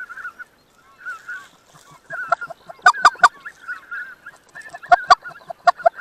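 Greater white-fronted geese calling: many short, high, yelping honks overlapping, with louder, sharper calls in quick clusters about three seconds in and again near the end.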